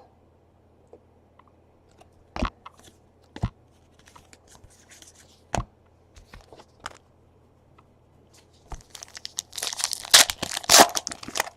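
Trading cards being handled, giving a few sharp clicks and taps. Near the end comes a dense crackle of a foil card-pack wrapper being torn open and crinkled.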